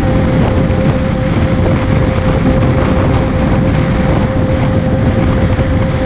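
Loud, steady engine drone with one constant hum running through it, and wind noise on the microphone.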